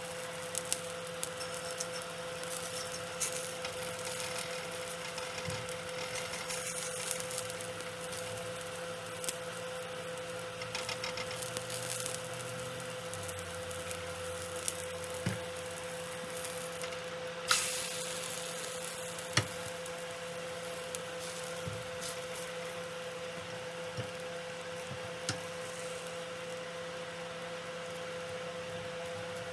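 Egg frying in a bell pepper ring in a nonstick pan: a faint, steady sizzle over a constant hum, with a few light clicks and taps of a silicone spatula against the pan, the sharpest two a little past halfway.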